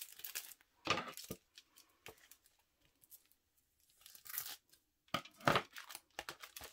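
Clear plastic sleeve holding a photocard crinkling as it is handled, in a few short bursts with quiet gaps between.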